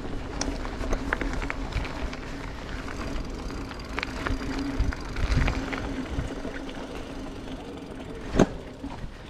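An off-road vehicle riding a rough trail: a steady drone over low wind rumble, with scattered rattles and knocks and one sharp knock about eight seconds in.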